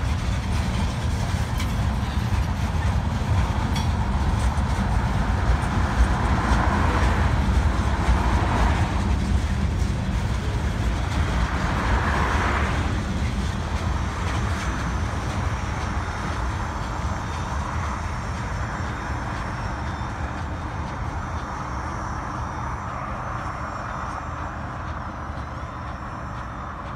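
Freight train rolling past on the rails with a steady low rumble and a hiss of wheel noise that swells twice. It then fades slowly as the train draws away.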